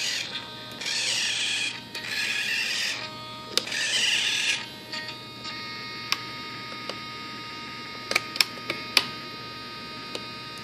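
About four short rasping strokes in the first few seconds, then a few light clicks, from work with a small hand tool at the aileron servo's linkage in a composite glider wing. A faint steady electrical whine runs underneath.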